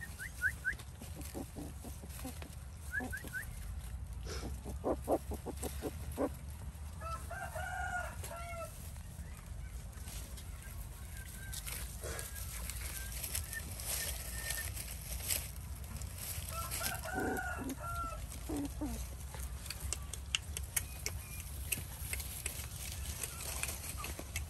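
A rooster crowing twice, about a third of the way in and again about two-thirds through. Short runs of quick clucking or clicking sounds come in between, over a steady low background rumble.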